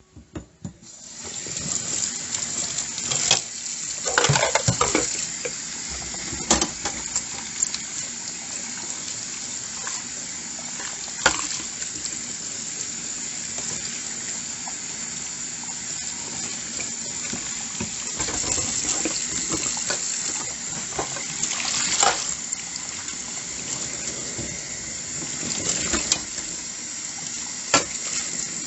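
Tap water running steadily into a sink while dishes are washed, with sharp clinks of dishes knocking together now and then.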